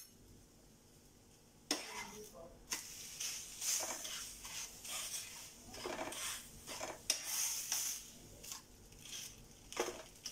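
A spatula scraping and tapping on a flat non-stick tawa in irregular strokes as a thin rice-flour crepe cooks in butter, with light sizzling. The strokes start after a quiet second or two.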